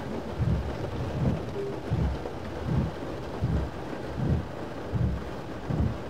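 Rain and road noise inside a moving car, with a regular low thump about every three-quarters of a second.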